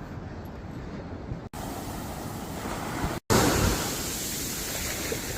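Ocean surf washing onto a beach as a steady rush of noise. It drops out sharply twice, and it is louder after the second break.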